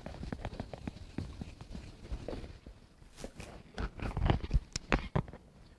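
A whiteboard eraser rubbing across a whiteboard, then a few footsteps from about three seconds in.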